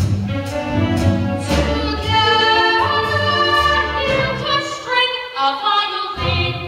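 A show tune: a group of voices singing over instrumental accompaniment with a steady beat.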